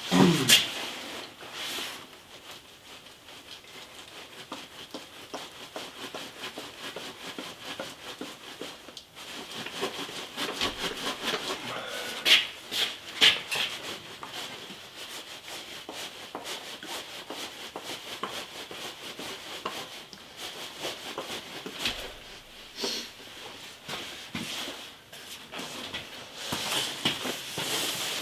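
Scattered clicks, creaks and rubbing of a steel motorcycle handlebar being forced and bent with a long pipe slipped over it as a lever, with a cluster of louder knocks about halfway through.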